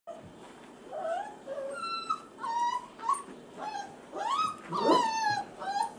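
F1b Goldendoodle puppies, about five weeks old, whimpering and crying in a run of about ten short, high cries. The longest and loudest comes near the end and slides down in pitch.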